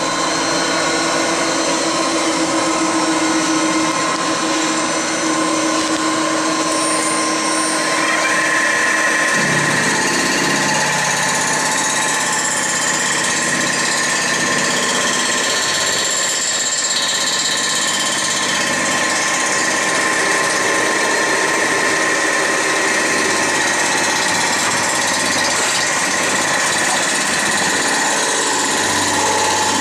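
Boring/milling machine running a large surfacing cutter across a cast-iron Ford Model A cylinder head, taking a resurfacing pass to flatten the warped deck. It makes a steady machine drone, and a steady high whine joins about a quarter of the way through.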